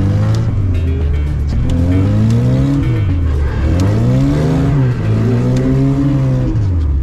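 Lada Zhiguli's four-cylinder engine revving hard up and down, rising and falling about three times and dropping off near the end, heard from inside the cabin as the car drifts on snow.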